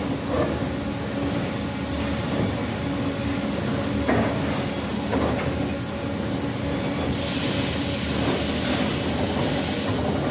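Amada 3612 punching machine running with a steady mechanical hum, punctuated by a few sharp knocks of its strokes, and a hiss of air about three-quarters of the way through.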